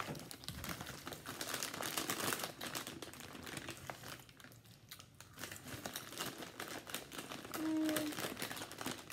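Crinkly plastic bag of Tottis oregano potato chips being handled and squeezed, a dense run of crackles, with a brief hummed 'mm' near the end.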